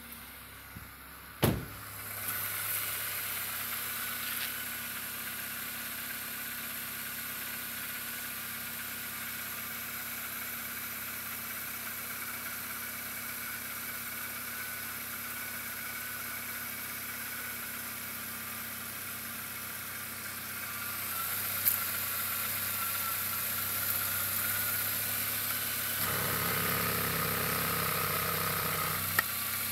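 Audi 80 B4 2.0-litre ABT four-cylinder petrol engine idling steadily, heard from the open engine bay. A single sharp knock comes about a second and a half in. Near the end the engine is heard closer and fuller, over the open oil filler neck.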